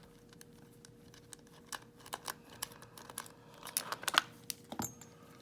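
Irregular small clicks and taps of a Schlage padlock being handled as it is taken apart, busiest and loudest a little past the middle.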